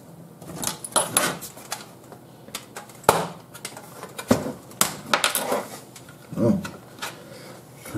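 Hard plastic DVD-player parts and small hand tools being handled and set down on a cutting mat: scattered clicks, taps and light scrapes, with a sharp knock about three seconds in and another just after four seconds.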